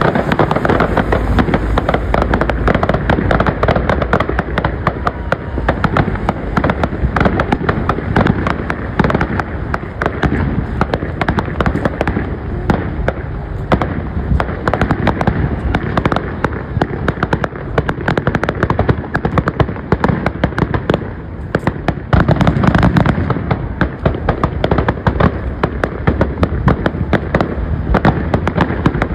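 Aerial fireworks display: a dense, continuous barrage of shell bursts and crackling, with heavier booms about three-quarters of the way through and again near the end.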